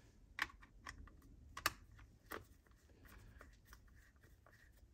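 A few faint, separate clicks of a steel screwdriver and small screws against the plastic housing of an electric pencil sharpener while the screws of its gear cover are taken out, the sharpest about a second and a half in.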